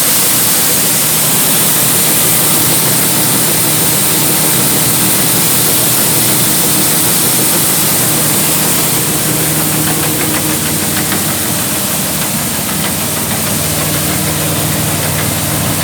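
A New Holland grinder-mixer running steadily, driven by a tractor engine. A constant low engine hum sits under a broad, even hiss from the machinery.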